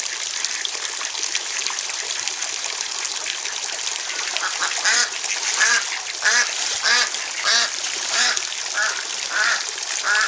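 Steady splashing of a garden pond's waterfall and fountain. From about halfway in, a duck quacks over and over, about ten evenly spaced quacks, roughly one and a half a second.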